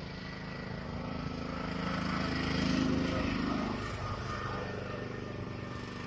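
Engine of a passing motor vehicle, running steadily, growing louder to a peak about three seconds in and then fading away.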